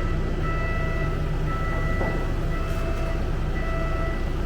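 An engine running steadily, a constant low hum with faint high-pitched whines that fade out and return a few times.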